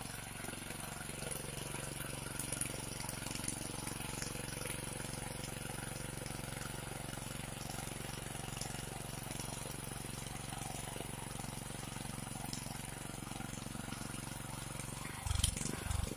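Honda FJ500 power weeder's small single-cylinder four-stroke engine running steadily while its tines churn the soil and it pulls a ridger attachment through the furrow. A few low thumps come near the end.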